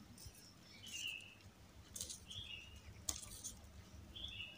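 Faint, short bird chirps, three or four of them spaced out, with a couple of faint clicks between.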